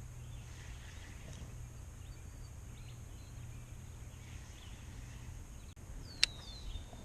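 Outdoor ambience: a steady low rumble with faint scattered high chirps, then a single sharp click about six seconds in, followed by two short falling whistled notes.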